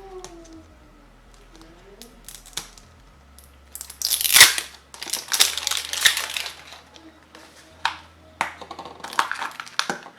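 Toy packaging crinkling and rustling as it is handled and pulled open, in several noisy bursts starting about four seconds in, the loudest just after they begin.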